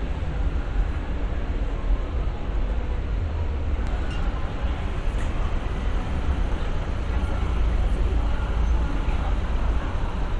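Busy city street ambience: a steady low rumble of traffic with faint voices of passers-by.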